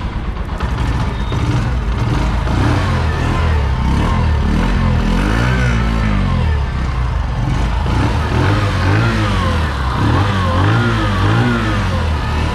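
Bajaj CT 110X's single-cylinder four-stroke engine running, blipped up and back down several times, each rev rising and falling in pitch.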